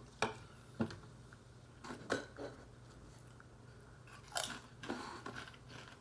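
Crunching and chewing of wavy Pringles potato crisps in the mouth: a few sharp crunches spread through, the loudest about four and a half seconds in, between quieter chewing.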